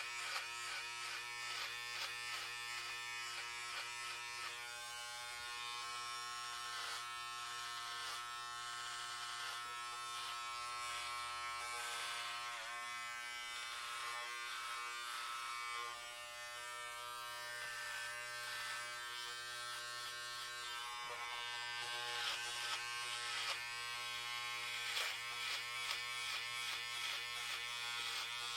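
Electric hair clippers running with a steady buzz, the pitch dipping briefly a few times.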